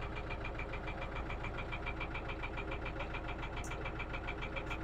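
Motorboat engine running steadily, with a rapid, even pulsing beat.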